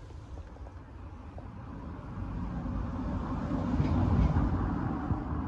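A vehicle passing in the street: a rumble with tyre noise swells to a peak about four seconds in, then eases a little.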